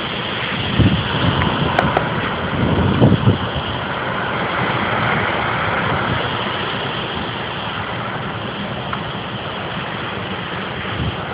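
Hurricane winds blowing hard through trees, a steady rushing noise. Gusts buffet the microphone about one second and three seconds in.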